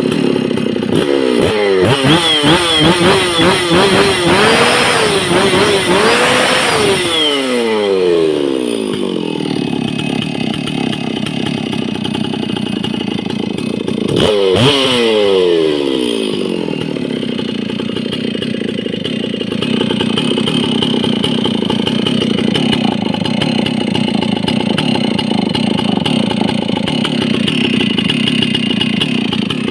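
Stihl MS660 two-stroke chainsaw revved hard for several seconds, its pitch wavering up and down, then dropping back to a steady idle. About halfway there is a click and a short rev that falls back to idle.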